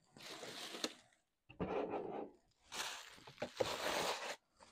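Packaging rustling and scraping as items are handled out of a shipping box, in three stretches, the last one the longest.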